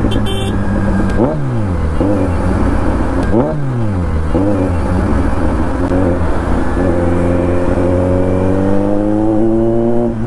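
Kawasaki Z900's inline-four engine through an SC-Project aftermarket exhaust, heard from the rider's seat. It gives two quick revs about two seconds apart, each jumping up in pitch and falling away. Later the note climbs steadily as the bike accelerates in gear.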